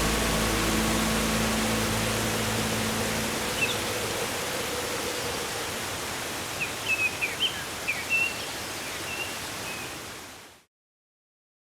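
Steady rushing of waterfall water with birds chirping a few times, mostly in the second half, the whole fading out to silence about ten seconds in. The last held notes of background music die away in the first few seconds.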